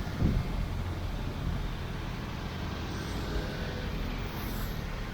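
Steady street traffic noise from passing cars and trucks, with a brief low thump about a quarter second in.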